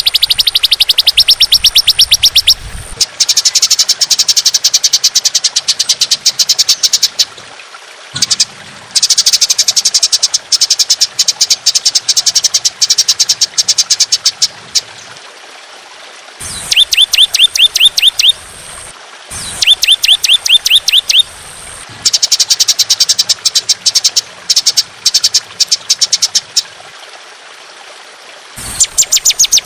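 A songbird's long, rough, rapid-fire trills ('tembakan'): bursts of fast, evenly repeated high notes lasting a few seconds each, with short pauses between. A couple of bursts midway are lower and made of quick falling notes.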